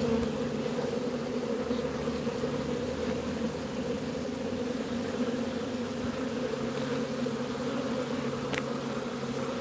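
Steady, dense buzzing hum of a honeybee swarm crawling and flying around an open hive box, a swarm whose queen is missing.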